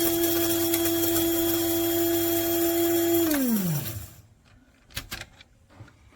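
KRUPS Fast Touch 200-watt blade coffee grinder running with a steady whine as it grinds coffee, then released a little over three seconds in, the motor winding down in pitch to a stop within about a second. A couple of faint clicks follow.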